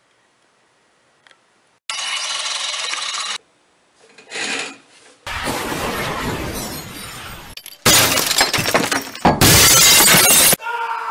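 Breaking-glass sound effect: a run of loud crashing and shattering noises that start and stop abruptly, the loudest two coming about two-thirds of the way through.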